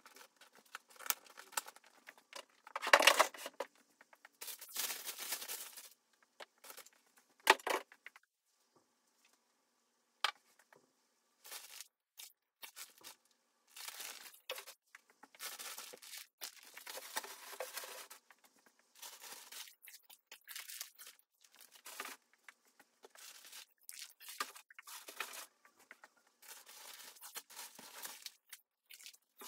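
Packaging being handled, rustling and crinkling in irregular short bursts, with the loudest bursts about three seconds and seven and a half seconds in.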